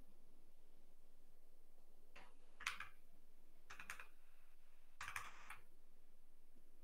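A few faint clicks and keystrokes on a computer keyboard, in three short clusters about two and a half, four and five seconds in.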